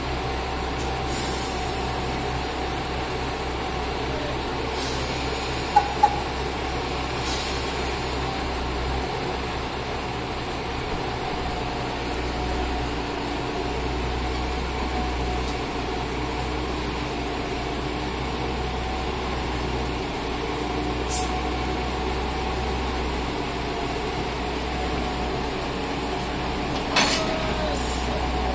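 Diesel railcars of the Nagara 300 and 500 types idling steadily while being coupled, with short air-brake hisses, two short sharp tones about 6 seconds in, and a sharp clank near the end as the couplers meet.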